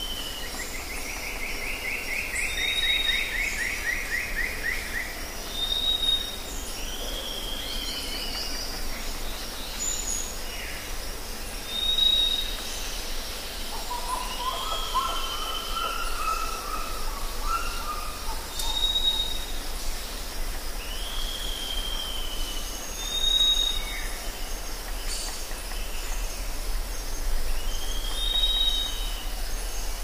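Birds calling over a steady background hiss. Short high chirps repeat every few seconds, with a long, rapid descending trill near the start and a lower warbled call about midway.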